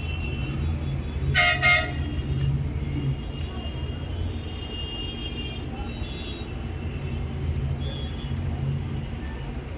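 A vehicle horn honks twice in quick succession about a second and a half in, over a steady low rumble of traffic.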